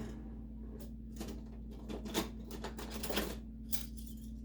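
Metal knives and cutlery being handled in a kitchen drawer: a scatter of light, irregular clicks and clinks.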